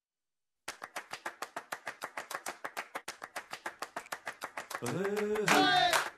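Fast, even ticking like a clock or stopwatch, about eight ticks a second, starting a moment in. A voice comes in over it near the end.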